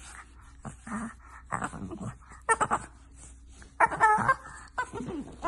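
Bulldog puppy vocalizing in a string of short whines and grumbles while its belly is rubbed, the loudest about two and a half and four seconds in.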